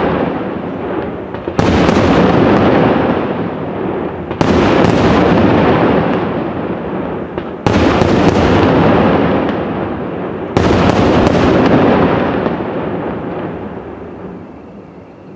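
Aerial firework shells bursting: four sharp bangs about three seconds apart, some of them doubled. Each bang is followed by a long, fading noisy tail, and the last dies away near the end.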